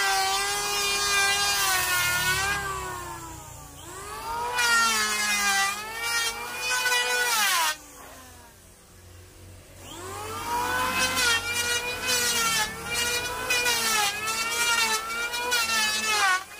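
Handheld electric power planer running as its blades cut across a wide wooden board. The motor's high whine dips in pitch under load with each pass. It winds down about three seconds in and again near eight seconds, and spins back up each time.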